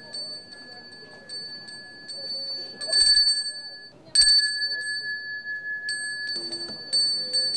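A high-pitched hand bell rung continuously: the Balinese priest's genta that accompanies temple prayer. It is loudest around three seconds in, stops briefly, and is struck up again just after four seconds.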